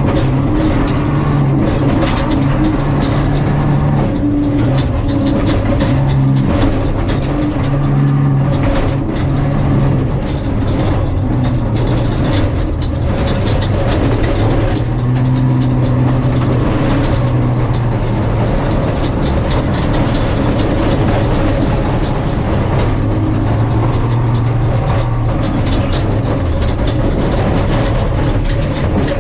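Jeep Cherokee prerunner driven hard over rough dirt, heard from inside the cab. The engine note rises and falls with the throttle, over a steady rumble of tyres and gravel, with frequent rattles and knocks from the body and suspension.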